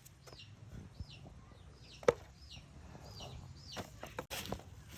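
A bird calling over and over, a short hooked chirp roughly every three-quarters of a second, with one sharp knock about two seconds in.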